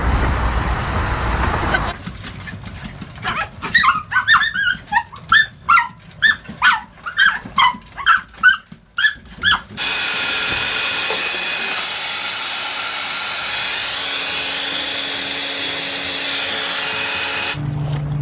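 A dog barking in a quick run of short, high-pitched barks, about two a second, for several seconds. It cuts to a steady whirring noise with a thin whine.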